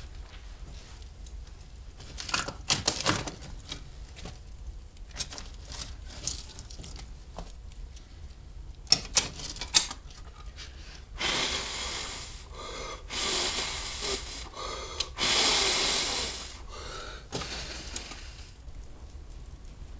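A fire being laid in a fireplace: scattered knocks and clicks of wood and kindling, then three longer rustling, crackly noises in the second half.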